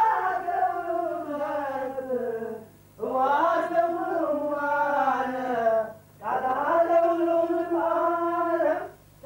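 Voices chanting a Beta Israel prayer chant in three phrases of about three seconds each, with short breaths between them. The melody slides downward through each phrase, and no instruments are heard.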